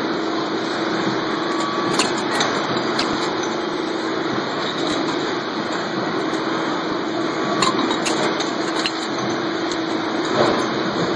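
Vertical impact extrusion press for aluminium capacitor shells and cans running with a steady hum, with a few sharp metallic clicks in two clusters and a heavier knock near the end as the aluminium shells are handled at the die.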